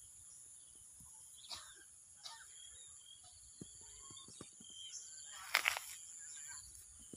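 Insects buzzing steadily at a high pitch, with scattered faint rustles and a short louder noise about five and a half seconds in.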